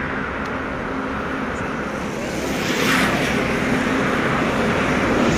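Road traffic passing: a steady rush of engine and tyre noise that grows louder about two and a half seconds in as a vehicle goes by close.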